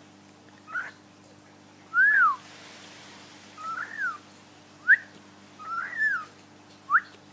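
Cockatiel giving a series of six short whistled chirps about a second apart, most rising and then falling in pitch.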